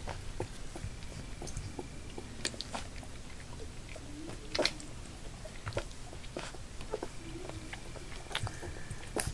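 Nearly three-week-old black Labrador puppies wrestling and mouthing each other on carpet: scattered small clicks, scuffles and mouthing noises, with a couple of brief puppy grunts.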